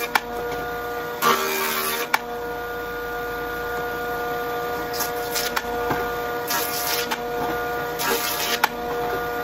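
Jointer running with a steady whine while its cutter head shaves a flat face on a small log pushed across the bed. The cuts come as several short bursts of cutting noise, each about half a second to a second long, with a few sharp clicks between them.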